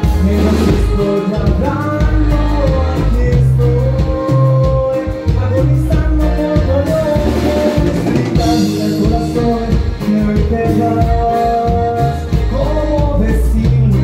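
Norteño band music played live: a steady drum-kit and bass beat under a lead line of held notes, with singing.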